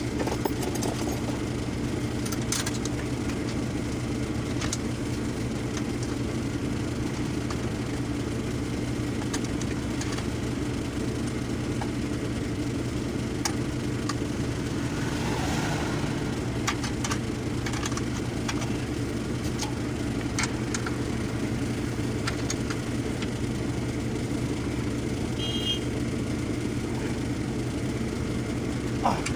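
Engine idling steadily, an even low hum, with a few light clicks and a short hiss about halfway through.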